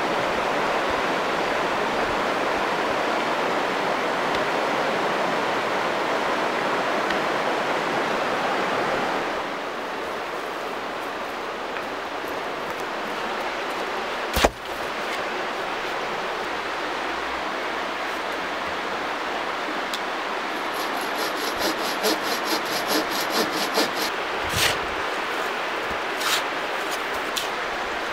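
A shallow river rushing over rocks makes a steady, loud rush for about the first nine seconds. After that the background is quieter, broken by one sharp knock about halfway through. Near the end come a run of scrapes and thuds as a small shovel digs into soil.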